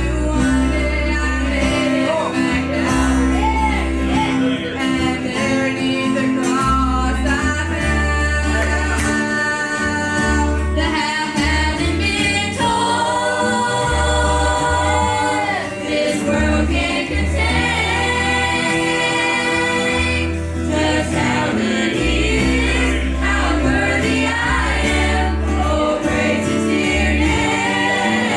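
Gospel song sung by a small group of voices together, over a steady instrumental backing with a moving bass line.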